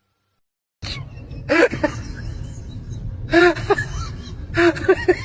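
A dog whining through a gap in a metal gate: clusters of short, high cries that rise and fall, coming about every second and a half over a low rumble. The first second is silent.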